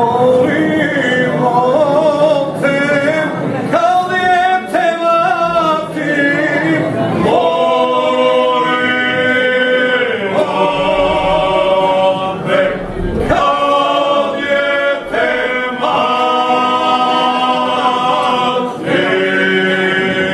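A group of men singing a folk song unaccompanied, in long held notes. The phrases break off for a breath every few seconds.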